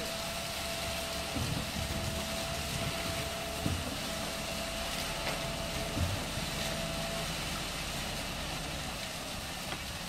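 Concrete pump truck running steadily while it pumps concrete through the boom hose, with two sharper knocks near the middle.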